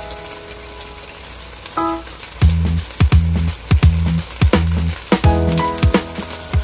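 Thin slices of beef sizzling in hot oil in a nonstick wok. About two and a half seconds in, background music with a steady bass beat comes in over the frying.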